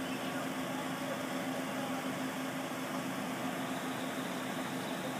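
Truck-mounted crane's engine running steadily with a constant low hum while it lifts a shipping container on chains.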